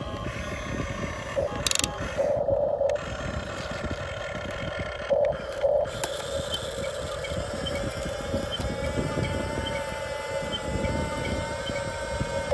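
Huina RC excavator's electric motors and gearboxes whining steadily as the upper body slews and the arm moves, with a few short louder surges and a faint tone that slowly rises in the second half.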